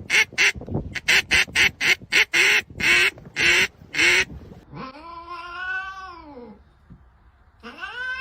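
A pet animal calling: a fast run of short, harsh calls, about three a second, then two long wailing calls that rise and fall in pitch.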